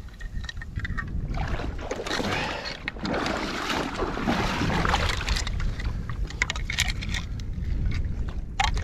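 Gusty wind rumbling on the microphone, over sloshing and splashing water. Scattered sharp knocks and clicks come in the second half.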